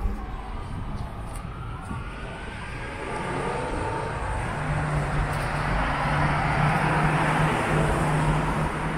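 A car passing on a city street: tyre and road noise building over several seconds to a peak near the end, with a steady low engine hum joining about halfway through.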